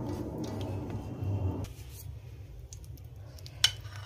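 Silicone spatula scraping thick, wet gravy out of a steel pan onto a plate of momos, a squelching scrape that stops abruptly under two seconds in. Near the end there is a single sharp clink as a steel fork is set down on the plate.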